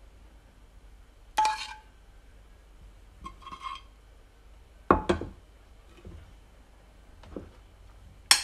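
Metal spoon clinking and knocking against the dishes as sauce is spooned onto a plate and spread: a few separate clinks, the first one ringing briefly, with a sharp clink near the end.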